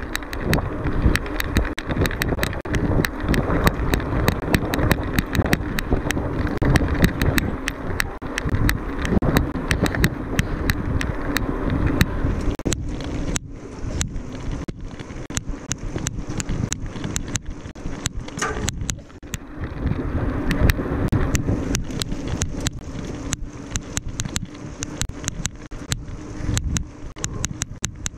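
Mountain bike being ridden over rough trail, heard from an onboard camera: steady tyre and wind noise with rapid rattling clicks from the bike and mount, easing a little about halfway through.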